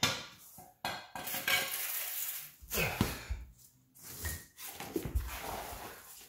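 Clinking and scraping of metal as a car's front wheel is worked off its hub and moved aside, with a sharp click at the start and a few dull thumps partway through.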